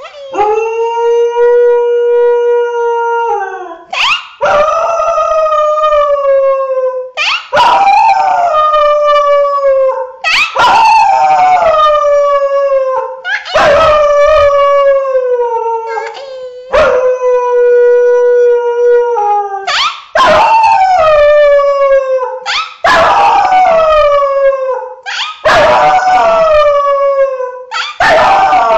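A dog howling over and over: about ten long howls, roughly one every three seconds. The first is held at a steady pitch, and each later one starts high and slides down.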